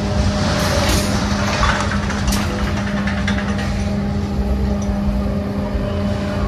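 Loud, steady machinery running, with a constant hum over a low rumble and a few clicks and rattles near the start.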